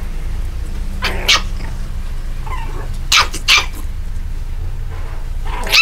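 Shih Tzu puppies giving a handful of short, high yelps and squeaks as they play, single cries a second or two apart, over a steady low hum.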